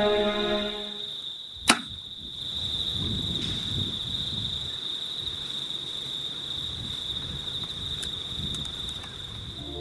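A single sharp snap of a bow shot about two seconds in, over a steady high-pitched drone of insects.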